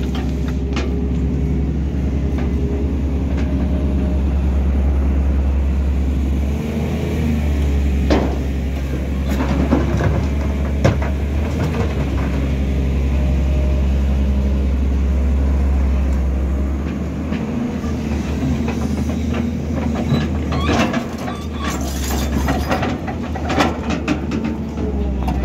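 Volvo crawler excavator working in rocky ground: its diesel engine runs steadily under load, easing off briefly a few times. Scattered knocks and scrapes of the steel bucket on rock come through, most of them near the end.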